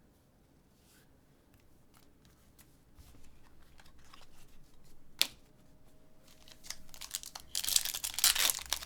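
Trading card pack being handled and then torn open, the wrapper crinkling loudly near the end, with light clicks of cards and packaging before it and one sharp click midway.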